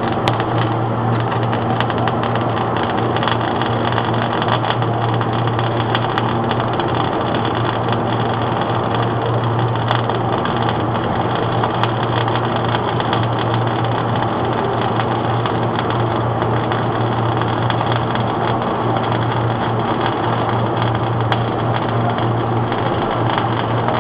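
MIG/MAG welding arc burning continuously: a steady, unbroken crackle over a low hum.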